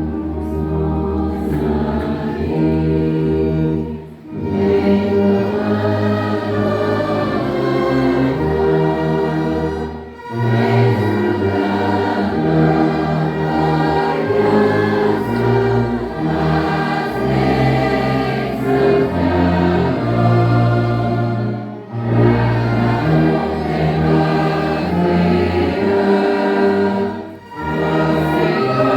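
A hymn performed by voices and instruments in sustained chords, with a tuba carrying the strong low bass line. The music breaks briefly between phrases four times.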